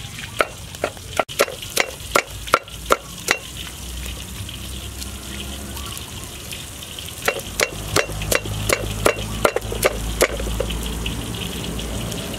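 Wooden pestle pounding garlic in a wooden mortar: sharp knocks about three a second, a pause of a few seconds, then another run of knocks.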